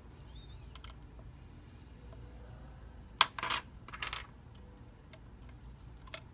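Small hard clicks and brief scrapes from handling tiny phone-repair parts. There is one sharp click about three seconds in, followed by two short scraping bursts, with a few faint ticks before and after.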